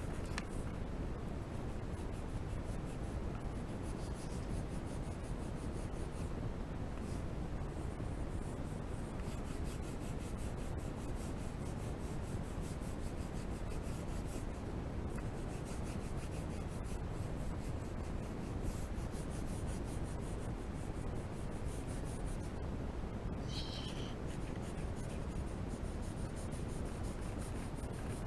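Red coloured pencil rubbing on paper in steady shading strokes.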